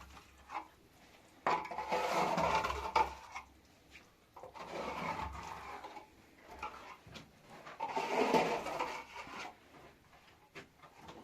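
Cookware being handled: three bouts of clattering, rubbing noise, each a second or two long, with sharp knocks in between.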